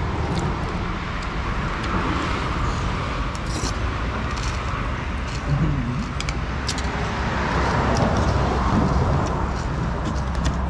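Road traffic going by, a steady noise that swells twice as vehicles pass, with a few light clinks of a metal spoon against a bowl.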